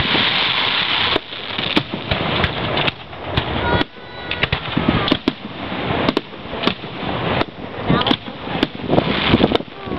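Aerial firework shells bursting one after another: many sharp bangs at irregular intervals over a continuous noisy background.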